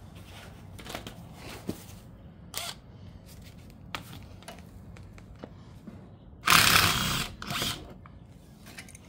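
Metal hand tools clicking and clinking against the front brake caliper of a 2012 Mini Countryman S during caliper removal, with a louder rattle lasting under a second about two-thirds of the way in and a shorter one just after.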